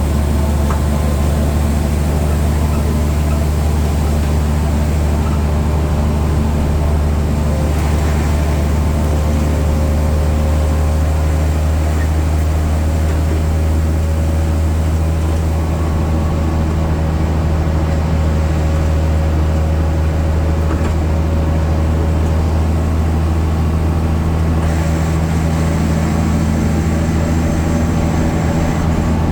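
BredaMenarini Avancity Plus city bus with its Deutz diesel engine running steadily: a low, even drone with fainter steady tones above it, unbroken throughout.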